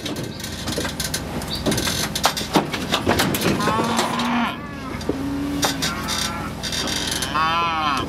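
Heifers mooing, several separate calls with the loudest near the end, over scattered metal clanks and knocks.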